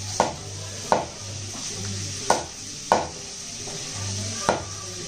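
Chicken frying and sizzling in a pan while it is stirred with a metal utensil, which knocks sharply against the pan five times.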